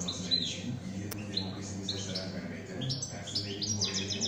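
European goldfinch (saka) singing: a fast run of short, high twittering chirps, turning into a quicker burst of repeated notes near the end.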